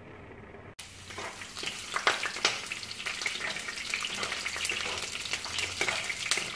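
Sliced garlic sizzling in hot oil in a nonstick frying pan, starting about a second in, with metal tongs clicking and scraping against the pan as the slices are turned. This is the garlic-in-oil stage of an aglio e olio pasta.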